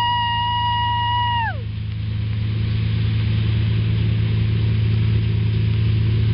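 Wind rushing over the microphone of a parasailer being reeled in, over a steady low drone from the tow boat's engine. A clear high steady tone is held and then slides down and stops about a second and a half in.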